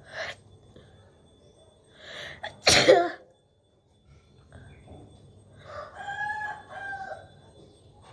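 A woman sneezes once, loudly and sharply, with a breathy intake of breath just before it. A little later comes a fainter two-part rooster crow.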